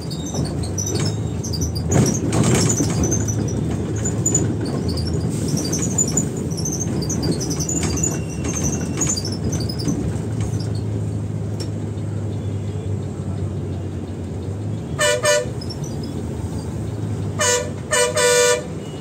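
Steady engine and road noise of a moving bus, with three short vehicle horn honks near the end: one, then two close together.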